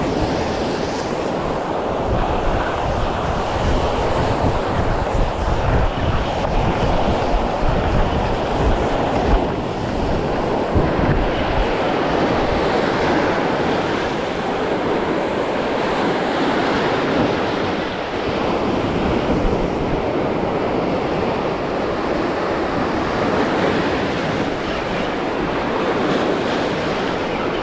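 Sea surf breaking and washing over shore rocks, with wind buffeting the microphone as a low rumble.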